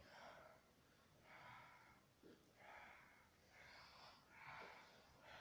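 Near silence with a series of faint soft breaths, about one a second.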